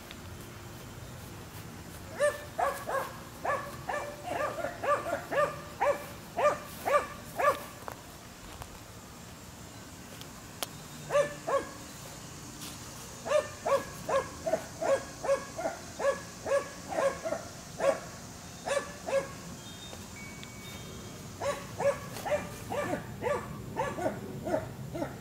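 A dog barking in quick runs of short barks, about two a second, in several bouts with pauses between them.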